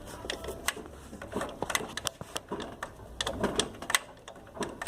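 Chevrolet Agile engine running with an irregular clattering tick from the timing belt area, several ticks a second over a low hum: the sign of a defective timing belt tensioner.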